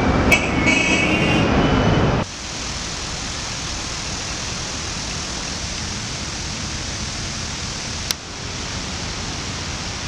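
Steady outdoor background hiss, louder for the first two seconds and then dropping to a lower even level. A few brief high chirps sound near the start, and a single click about eight seconds in.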